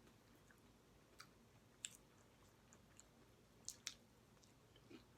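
Near silence broken by a few faint clicks and smacks of someone chewing sauced chicken legs.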